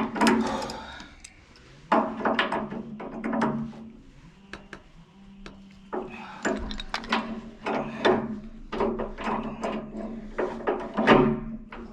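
Irregular knocks and clunks of hand tools and metal fittings being handled during pipework, over a steady low hum.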